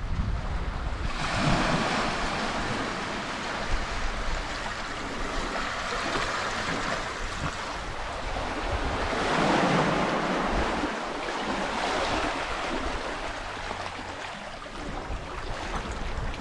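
Small sea waves washing against a rocky coral shore, swelling and fading twice, with wind rumbling on the microphone throughout.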